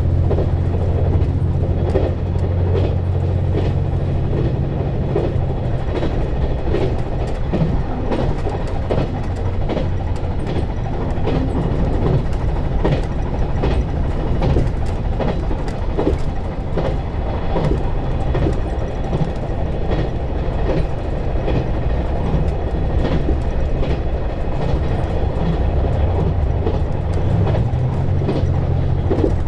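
KiHa 187 series diesel railcar running along the line: the low drone of its diesel engine with irregular clicks and clatter of the wheels over rail joints. The engine drone is strong for the first couple of seconds, eases off through the middle and comes back strongly near the end.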